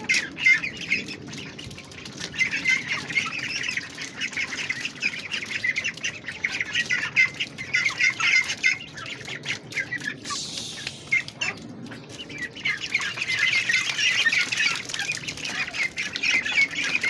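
A flock of domestic ducks calling, many short overlapping calls in a continuous chatter, thinning briefly about ten seconds in with a soft rustle before the chatter picks up again.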